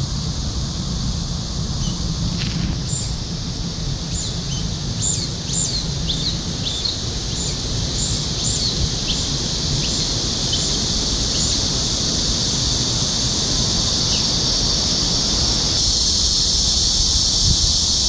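Short, high, down-slurred squeaky calls of brown-eared bulbuls, repeated irregularly over the first ten seconds or so, over a steady high drone of cicadas that grows a little louder near the end. A low rumble runs underneath.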